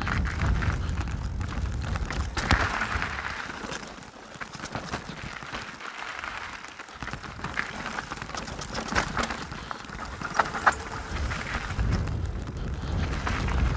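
Mountain bike, a Canyon Strive CFR, riding down a rocky trail, with its tyres and frame clattering in irregular knocks and rattles over the rocks and wind rumbling on the camera microphone. The wind rumble drops away for a few seconds midway, then picks up again.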